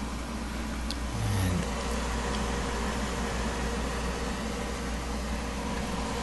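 Steady whirring hum of a CD/DVD duplicator tower's cooling fans and optical drives running while they burn LightScribe disc labels. A small click and a short low tone come about a second in.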